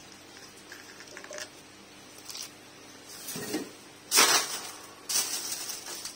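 Handling noises from unpacking a wall fan: light knocks and rustles, then two louder crinkling rustles of plastic packaging wrap near the end.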